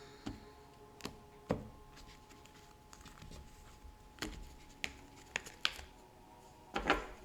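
Tarot cards being handled: scattered sharp taps and snaps of card stock, a few a second at most, with a louder flurry near the end, over a faint steady drone.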